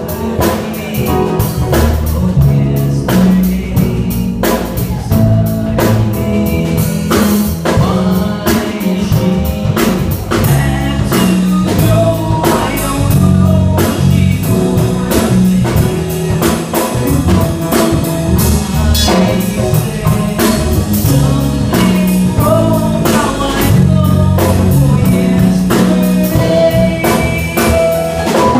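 Live band playing: a young singer singing into a microphone over keyboard, electric guitars and a drum kit, with a steady beat throughout.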